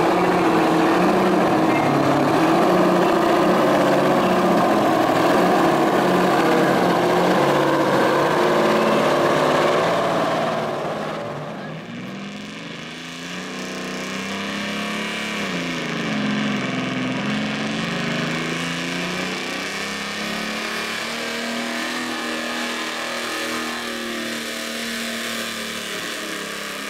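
Brockway semi-truck's diesel engine running hard. It is loud and close for the first ten seconds or so. After a sudden drop in level it is heard at full throttle dragging a weight sled, its pitch dipping and climbing back once before holding steady.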